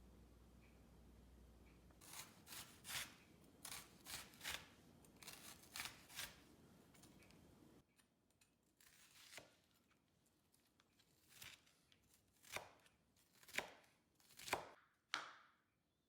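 Faint knife chopping on a cutting board: a run of quick, uneven strokes about two a second, a pause, then a handful of louder single chops near the end.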